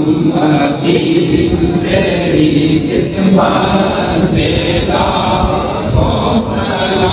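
A group of men's voices chanting a devotional recitation together, unaccompanied, in long sustained phrases that pause briefly every second or two.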